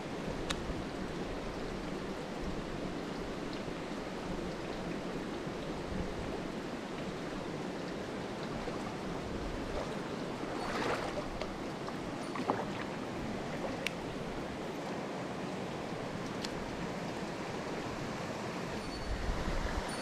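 Mountain stream running steadily over rocks into a pool, an even rush of flowing water. A few faint clicks and one brief louder swish about halfway through.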